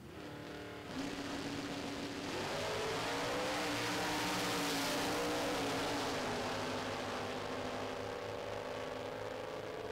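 Two Super Stock drag cars, one an Oldsmobile Cutlass, launching off the line at full throttle, with a sharp jump in loudness about a second in. The engines rise in pitch as the cars accelerate away down the strip, loudest midway, then fade gradually into the distance.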